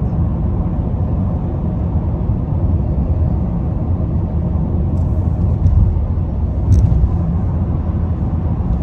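Steady low road and tyre rumble of a car cruising at highway speed, heard inside the cabin. Faint clicks come about five seconds in and again near seven.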